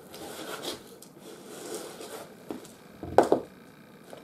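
Tap shoes scuffing and swivelling on the floor through a turn on the toes, followed by a few sharp taps, the loudest about three seconds in.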